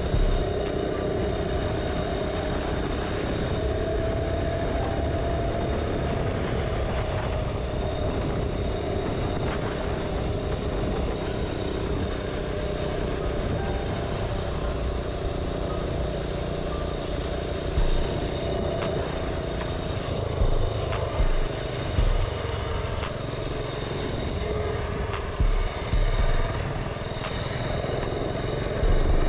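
Small single-cylinder mini bike engine running steadily at cruising speed, heard from the rider's seat, with wind rushing over the microphone. Several short louder jolts come in the second half, and the bike slows near the end.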